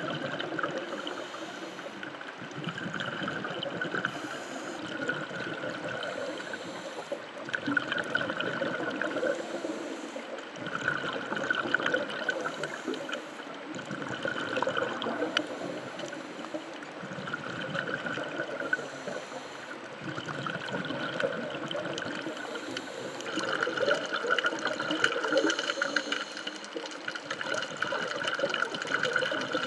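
Underwater sound of a scuba diver breathing through a regulator: a short hiss of inhalation every three to four seconds, each followed by the rumble of exhaled bubbles.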